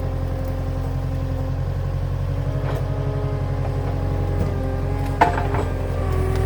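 Skid steer engine running steadily under load while it tries to lift a heavy log, with a sharp knock about five seconds in.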